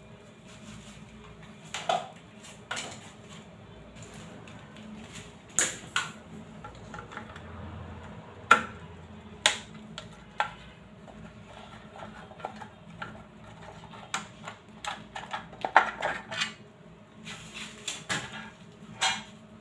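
Irregular clicks and knocks as hands take the clear plastic terminal cover off a single-phase prepaid electricity meter and work a wire at its terminals. A few sharp knocks stand out, the loudest about eight and a half seconds in and again near sixteen seconds.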